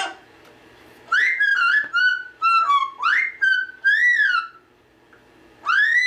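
A pet talking bird whistling: a quick run of about six short notes that slide up and down, then a single rising whistle near the end.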